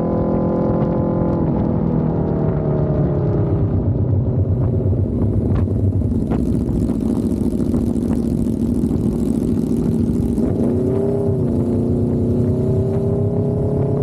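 Aprilia RSV4 1100 Factory's V4 engine running through a Racefit exhaust while riding. The revs drop a second or two in and hold steady, then rise and fall in a quick blip about two-thirds of the way through, and climb steadily to the end as the bike accelerates. Wind hiss on the microphone rises and falls in the middle.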